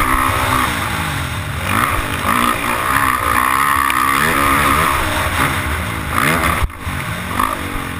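Dirt bike engine revving up and down as it is ridden, heard from a helmet camera. About two-thirds of the way in the throttle is chopped suddenly, and it picks up again shortly after.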